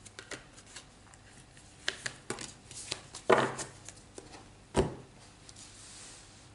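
Tarot cards handled and laid down on a wooden tabletop: a string of light clicks and taps, with a louder slap about three seconds in and a heavier knock just before five seconds.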